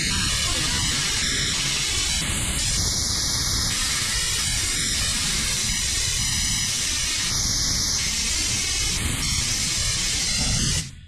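Compressed-air blower nozzle hissing steadily across the end of a quarter-inch poly tube, used as a venturi vacuum to suck leftover coolant out of a head bolt hole in an LS engine block. The air cuts off suddenly near the end.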